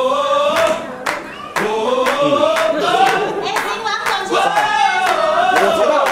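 A group of voices singing together with hand claps keeping time, about two claps a second.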